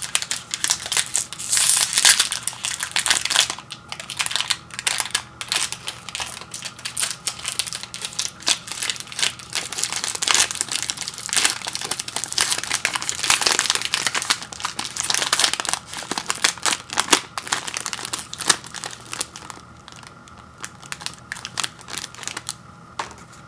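Foil-lined plastic granola bar wrapper being torn open and pulled apart by hand, crinkling and crackling in dense, irregular bursts that thin out in the last few seconds.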